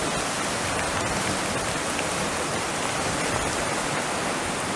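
Muddy creek in flood rushing through its channel: a steady, even rush of water.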